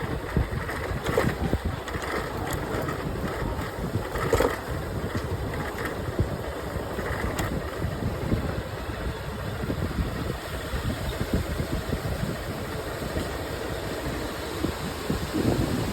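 Motorcycle running on the road while being ridden: a steady rumbling noise with a few short clicks.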